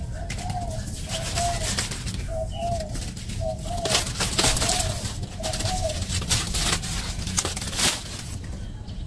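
A bird calls a short, arching note about once a second, seven times, then stops a little past the middle. Scattered rustles and scrapes run under and around the calls.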